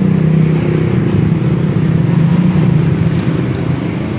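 Honda Vario scooter's single-cylinder four-stroke engine running steadily through an aftermarket SKR racing exhaust at low throttle.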